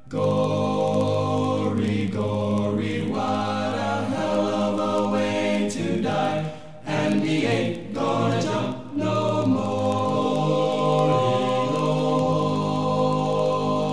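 Music: a choir singing long held chords without words, the chord changing every few seconds.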